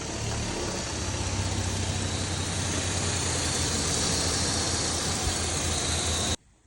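2002 Lexus car engine idling just after starting, a steady run with a strong hiss over a low hum; it stops abruptly near the end.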